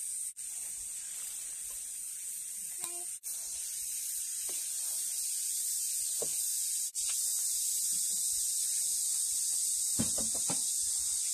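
Spoon stirring chopped chili peppers and broad beans in an earthenware bowl, soft wet scraping with a few sharper clicks of the spoon near the end, over a steady high hiss.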